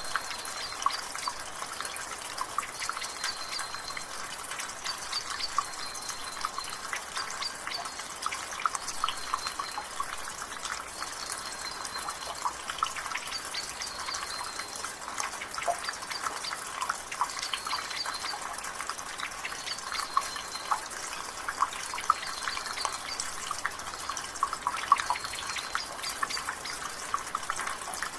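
Rainwater dripping and trickling from a gutter: a steady patter of many small drops over a wash of rain. A bird repeats a short, high call about every two seconds.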